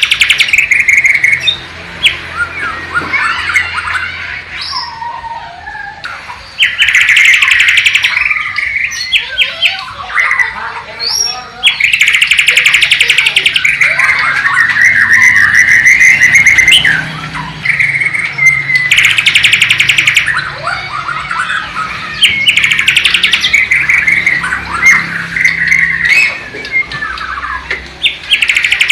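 A Bornean shama (murai batu) singing loudly and continuously. Every few seconds it breaks into a rapid trill, and between the trills come varied whistles, slides and short notes, a song that carries mimicked phrases of the sikatan londo / nightingale.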